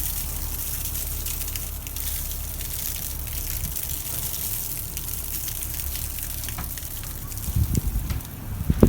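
Blizzard wind blowing snow past an open window: a steady rushing hiss with a low rumble of wind underneath, and a few low thumps near the end.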